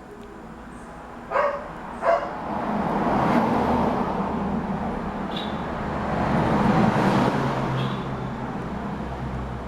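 A dog barks twice, then a vehicle passes, its rushing noise and low hum swelling over several seconds and slowly fading.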